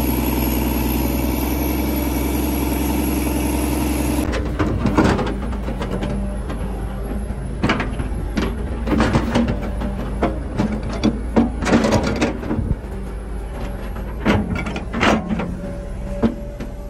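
Kobelko SK200 hydraulic excavator's diesel engine running steadily close up, then, about four seconds in, a lower engine hum under a run of irregular scrapes and knocks as the bucket digs and drags through wet, stony mud.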